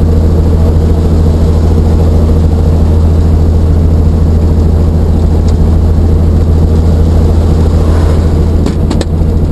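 Helicopter running, heard inside the cabin as a loud, steady low drone with a few steady tones above it. A couple of short clicks come near the end.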